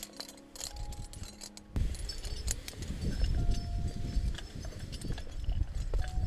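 Wind buffeting the helmet-mounted microphone, setting in suddenly about two seconds in, with scattered sharp metallic clinks of climbing hardware (carabiners and gear on the harness) knocking together.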